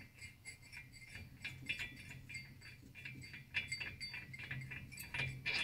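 Faint, scattered clinks and rattles of small metal tools and parts being handled and picked up on a workbench, over a steady low hum.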